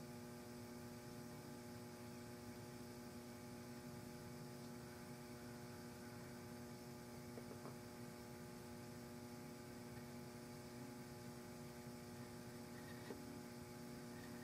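Faint, steady electrical mains hum, with a couple of faint ticks.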